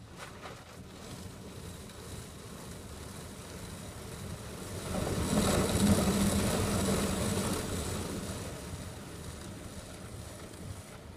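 Rotating soft-wash brushes of a Wesumat rollover car wash scrubbing over the car's wet bodywork, heard from inside the cabin. The rushing noise swells to its loudest about halfway through as a brush sweeps across the rear window, then fades.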